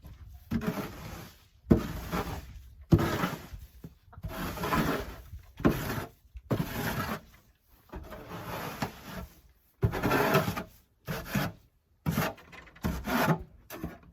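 Snow shovel scraping chicken droppings and bedding off the coop floor, in a series of strokes about one a second, some starting with a sharp knock.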